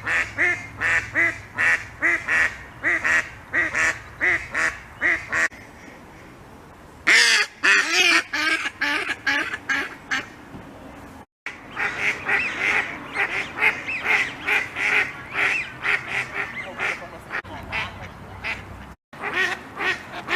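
Khaki Campbell duck quacking in quick runs of short, rasping calls, about three a second. The calls pause briefly about a third of the way in, then come back in a louder, denser burst.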